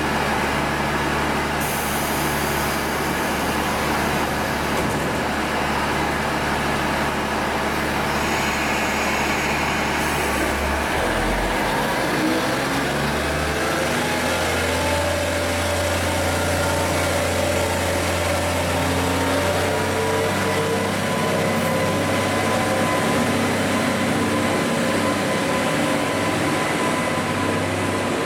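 KiHa 40 series diesel railcar's engine running steadily at the platform, then about eleven seconds in its note dips and rises to a stronger, higher steady drone as the railcar throttles up to pull out.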